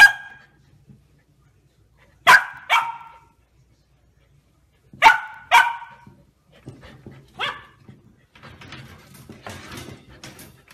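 Golden retriever puppy barking, six short sharp barks, mostly in quick pairs, spaced a couple of seconds apart.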